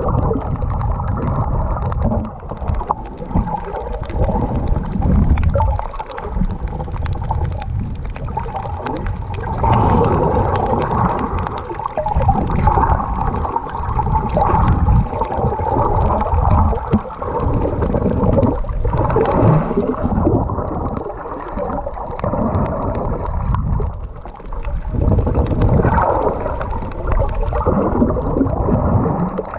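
Muffled underwater sound of sea water moving and gurgling, heard with the microphone submerged while snorkelling. It surges and fades unevenly, dull and low, with almost no treble.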